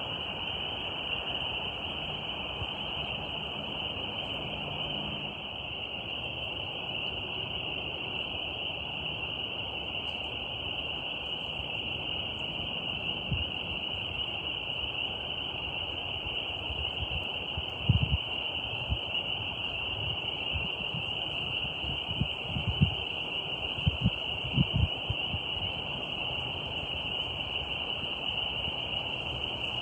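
Steady, high-pitched chorus of night insects droning without a break over a soft background hiss. A handful of low thumps land in the second half, about two-thirds of the way in.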